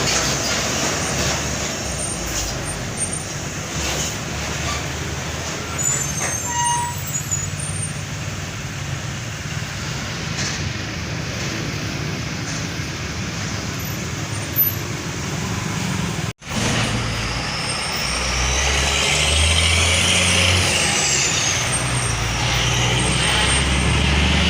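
Heavy trucks and road traffic passing, a steady noise of engines and tyres. After a brief cut about two-thirds of the way through, a truck engine runs louder and lower, with a high whine that rises and then falls.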